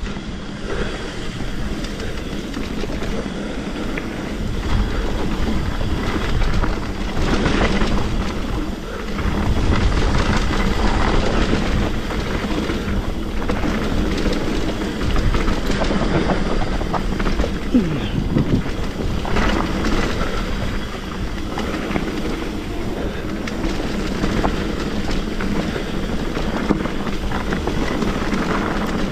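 Trek Remedy 8 mountain bike descending a rough, wet trail: continuous rattling and clattering of the bike and tyres over the ground.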